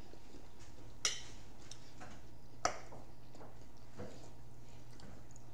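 Metal forks and a knife clinking against plates and dishes, a few short sharp clinks, the loudest about two and a half seconds in, over a low steady hum.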